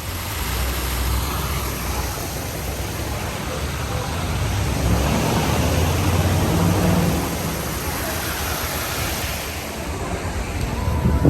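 Outdoor city ambience: a steady wash of noise with a low rumble, like traffic and wind on the microphone, with faint voices mixed in.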